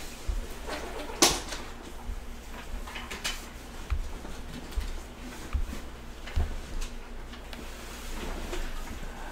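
Scattered clicks and knocks from someone working at a laptop next to a microphone, keys and handling, with a sharp click about a second in the loudest and a few low bumps.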